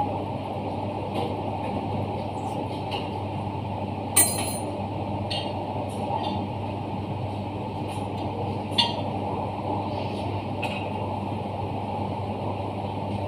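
Italclean Liberty 200 dry-cleaning machine running: a steady mechanical hum with a few sharp metallic clinks, the loudest about four seconds in and another near nine seconds.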